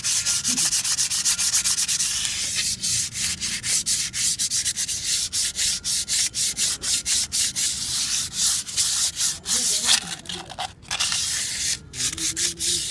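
Rapid back-and-forth abrasive rubbing by hand, like sanding or scrubbing a metal part, at about five hissy strokes a second with a few brief pauses near the end.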